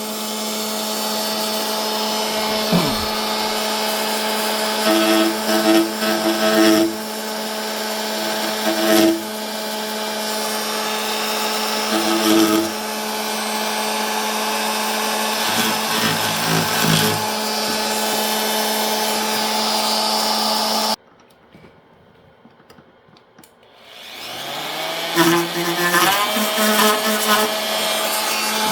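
Corded WARRIOR 2-amp variable-speed oscillating multi-tool running with a steady buzz, growing louder for short spells every few seconds as the blade bites into the piece being cut. About three-quarters through it is switched off, and a few seconds later it is switched back on, its pitch rising as it comes up to speed.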